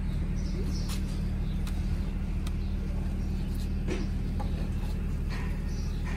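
A steady low mechanical hum, engine-like, runs throughout, with scattered light clicks and clinks.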